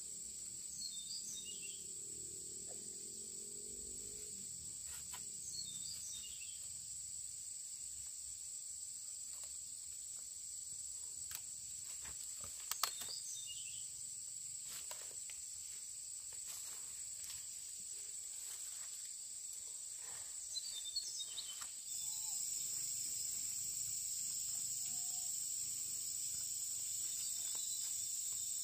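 Steady high-pitched chorus of insects, with a few short bird chirps over it and scattered light knocks in the middle. The insect sound steps up louder about three-quarters of the way through.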